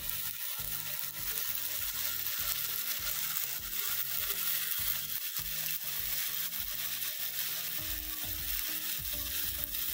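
Marinated chicken breast sizzling as it fries in hot oil on a flat pan, a steady hiss.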